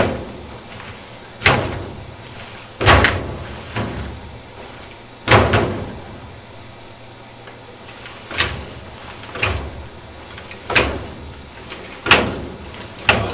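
Rotax 582 two-stroke twin being turned over by hand through its propeller, cold and not yet started: about ten sharp clunks, one each time the blade is pulled through, roughly every second or so and unevenly spaced. The propeller is pulled through many times because the reduction gearbox oil is very thick in the deep cold.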